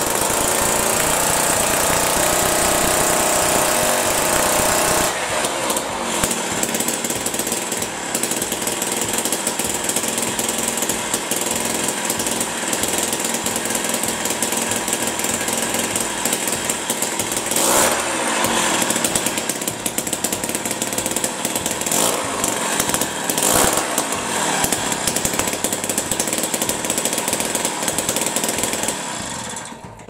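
A Jiffy ice auger's Tecumseh AV520 two-stroke engine running hard, its throttle opened and eased several times, then shut off near the end. It has just been got running with a rebuilt diaphragm carburetor, the high-speed screw two turns out. It has good throttle response but runs a little rough at high speed because the auger is spinning without a load.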